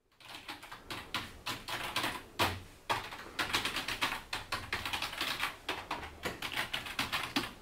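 Typing on a computer keyboard: a fast, irregular run of key clicks with a few heavier strokes. It starts suddenly from silence.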